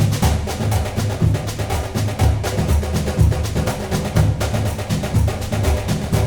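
Background music with a quick percussive beat of wood-block-like clicks over a bass line.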